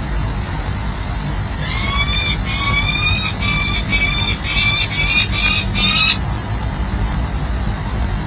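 Peregrine falcon calling at the nest: a run of about eight harsh, slightly rising calls over some four seconds, over a steady low rumble of city traffic.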